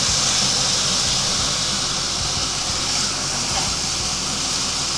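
Beef strips and onions frying in olive oil in a hot pan, a steady sizzle.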